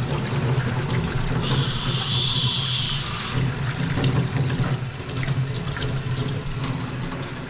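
Water running and splashing, with a steady low hum underneath and a brief louder hiss of water about two seconds in.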